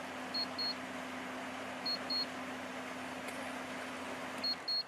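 LG LW1216ER window air conditioner running, a steady rush of air from its fan with a low hum, and giving a short double beep three times as remote commands are received. Just before the end the hum stops and the air noise dies away as the unit switches off or changes mode.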